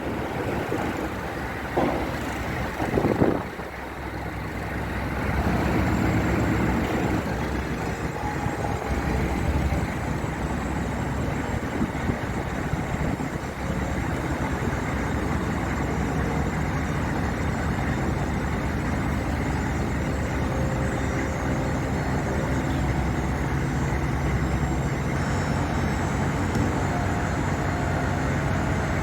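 A 1993 GM pickup's 6.5-litre turbo diesel engine running steadily as the truck drives. The engine sound rises about five seconds in and then holds even, after a couple of brief knocks early on.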